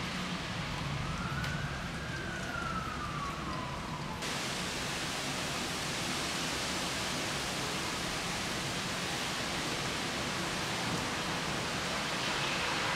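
Steady rain during a thunderstorm, heard as an even hiss. In the first four seconds a distant siren gives one slow wail that rises and then falls away.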